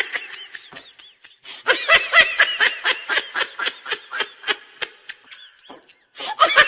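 Women laughing hard in rapid, high-pitched bursts, with a short pause about a second in and another near the end.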